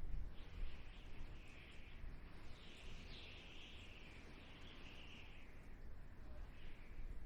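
Desert wind blowing in gusts: an uneven low rumble under a higher, hissing whistle that swells and fades every second or so.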